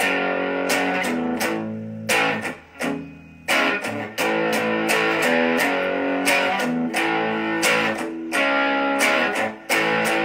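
Electric guitar played through an amp, strumming the chords of a song's intro, with a brief letting-ring pause about two and a half seconds in and a short break just before the end.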